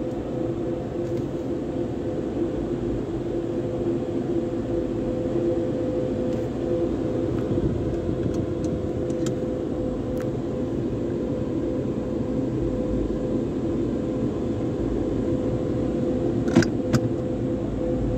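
Steady mechanical hum and rumble of car wash tunnel equipment and the car's idling engine, heard from inside the car, with a constant tone running through it. Two sharp clicks come close together near the end.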